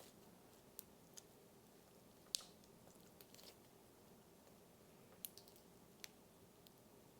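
Cereal slime being slowly stretched and folded by hand: a few faint, scattered crackles and clicks, the loudest about two and a half seconds in.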